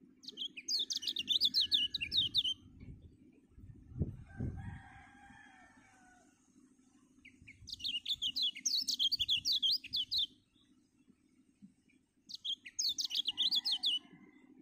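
A kecial kuning white-eye sings three bursts of rapid, high, down-slurred chirping notes, each lasting one to two and a half seconds. Between the first two bursts there is a low thump about four seconds in, followed by a fainter, lower call.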